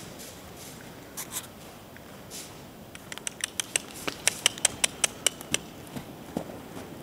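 A rapid run of sharp clicks, about four to five a second, from about three seconds in to a little past five and a half seconds, with two softer clicks earlier and a few fainter ones after.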